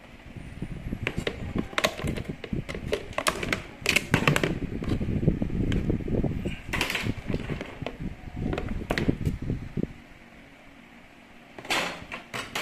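Irregular clicks, knocks and rustling of objects being handled, stopping about ten seconds in, with a brief clatter again near the end.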